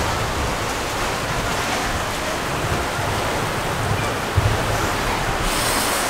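Heavy rain pouring down in strong wind: a steady rushing hiss, with gusts rumbling on the microphone.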